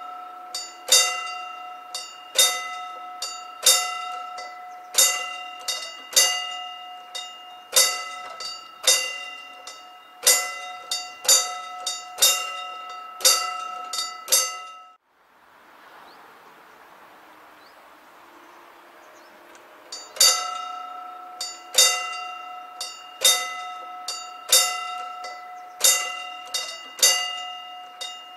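Level-crossing warning bell struck over and over at a steady pace, each stroke ringing on, signalling that a train is coming and the barriers are about to close. It breaks off about halfway for a few seconds of faint hiss, then starts again.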